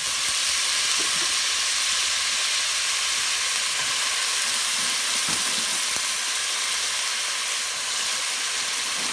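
Wet, freshly washed flat beans (seim) sizzling in hot oil and masala in a pot, a loud steady hiss that surges up as they go in.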